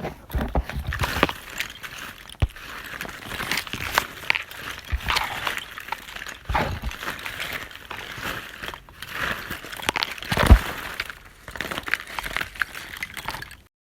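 Objects being handled and knocked about: an irregular clatter of knocks and clicks over rustling, with the sharpest knock about ten and a half seconds in.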